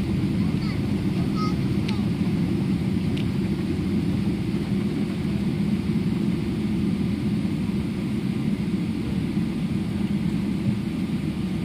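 Steady low rumble inside a jet airliner's cabin as it rolls along the ground after landing.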